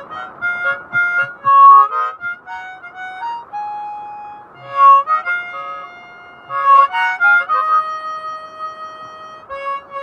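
Hohner harmonica played by mouth: a quick run of short notes, a held single note, then chords ending in a long held chord. It has just been fixed and is sounding on its other set of reeds.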